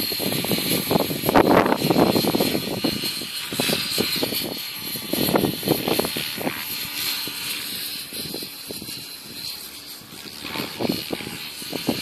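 Small propeller aircraft flying overhead, heard as a steady high drone, with irregular gusty rushes of noise over it.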